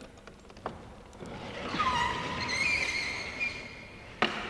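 A large, wide wooden drawer of an old cope chest being pulled out, its wooden runners scraping and squeaking in a wavering squeal, with a sharp knock near the end.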